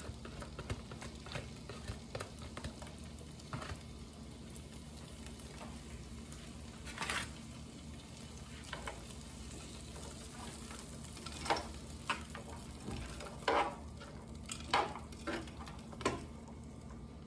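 Chopped vegetables and chickpeas sautéing in olive oil in a frying pan, with a faint steady sizzle. Metal tongs stir them, scraping and clicking against the pan now and then, more often and louder in the second half.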